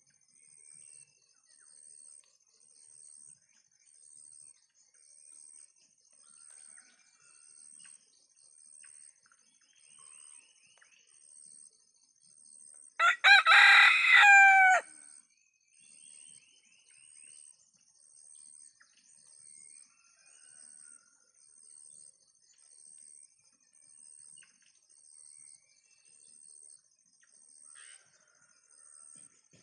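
An ayam kampung (Indonesian free-range village) rooster crowing once, a loud call of about two seconds roughly halfway through, with a few faint short bird calls around it. Behind it, a faint high-pitched chirp repeats about once a second.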